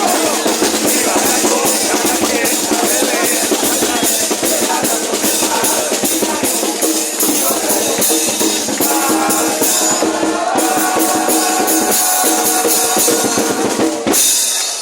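Uruguayan murga: a choir singing over the murga drum section of bass drum, cymbals and snare, in a driving beat. The music cuts off sharply near the end.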